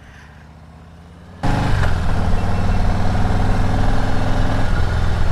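Vehicle engine running at a steady pitch under a wide rush of noise, which cuts in abruptly and loud about a second and a half in, after a faint low hum.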